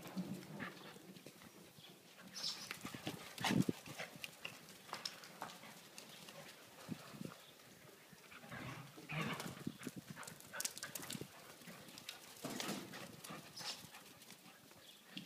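Ibizan hound puppies playing: paws pattering and scuffling on concrete, with a few short high yips.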